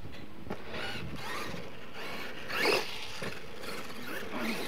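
RC monster truck's motor and gears whining as it revs up and down while driving over dirt, the loudest rev a little past halfway.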